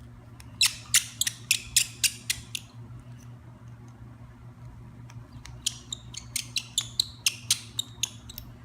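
A screwdriver backing out two small screws from the plate on the Spectra 3000 printer's damper unit: two runs of quick squeaky clicks, one near the start and one starting about halfway through. A low steady hum runs underneath.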